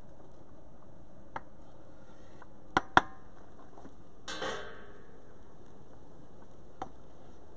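Cooking utensils clicking and clattering at an outdoor grill station: two sharp clicks close together about three seconds in, then a short scraping clatter, with a few fainter clicks before and after, over a steady low hiss.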